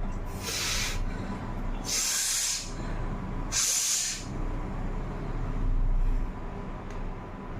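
Three hard blasts of air forced out through the nose, each lasting well under a second and about a second and a half apart: nose blowing with a head cold.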